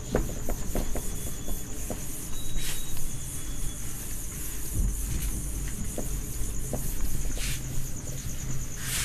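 A cloth duster wiping marker off a whiteboard: a rubbing swish that rises and falls with the strokes, with a few small knocks. A steady, high cricket trill runs underneath.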